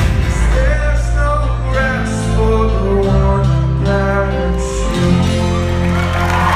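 Live band music: acoustic guitars and electric bass with singing, heard in a concert hall. About five seconds in the band settles onto a long held final chord.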